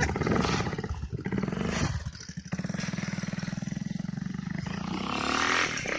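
Patron Sport 250 motorcycle engine revving as the bike pulls away, with brief breaks in the note about one and two seconds in, then a steady run and revs climbing near the end.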